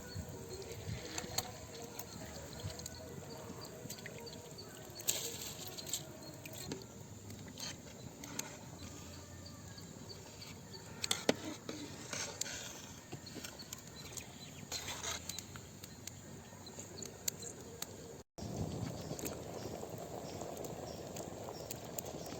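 Pot of basmati rice and chicken masala boiling for biryani: bubbling with scattered small pops and clicks. About 18 seconds in it cuts to a steadier hiss.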